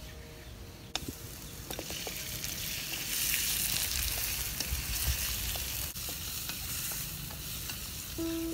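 Pieces of pigeon meat sizzling as they fry in hot oil in a steel wok over a wood fire, stirred with chopsticks. A few sharp taps come about a second in, then the sizzle builds and stays loud.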